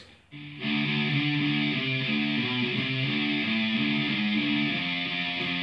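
Electric guitar with the sixth string tuned down to D, playing a riff of sustained chords that step down the neck on the sixth string: frets 12, 10, 9, 10, 7, 6, 3. The riff begins about half a second in.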